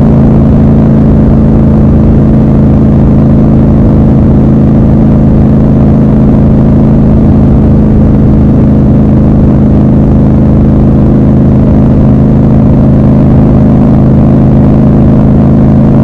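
Triumph Scrambler 1200 XC's parallel-twin engine running loud and steady at a constant cruising speed, its pitch holding level throughout, with road noise beneath it.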